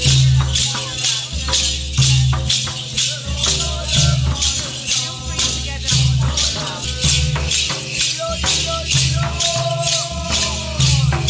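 Music with a steady shaker beat, about four strokes a second, over a pulsing bass line and a melody.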